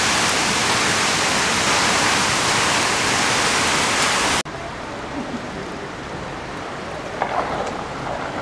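Heavy rain, a dense steady hiss. About halfway through it cuts off abruptly to a quieter sound of floodwater moving and lapping, with a few brief louder sounds near the end.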